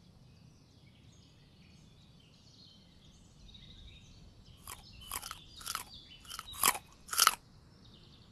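Carrot-crunching sound effect: about seven sharp, crisp bites in quick succession, starting about halfway through and growing louder toward the end. Before them, faint high chirping sits in the background.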